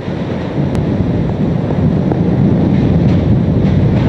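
Hurricane-force wind of Hurricane Katrina blowing hard across the microphone, a loud, steady, low buffeting noise.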